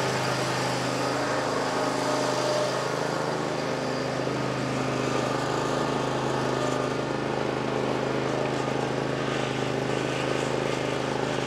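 Hustler zero-turn riding mower's engine running at a steady pitch while the mower is driven off.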